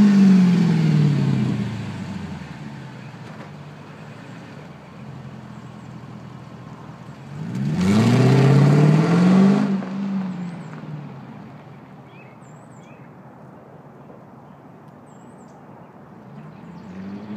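Mercedes-Benz W220 S500's V8 exhaust falling back from a rev to idle, then the car accelerating away with a rising engine note that drops off and fades into the distance.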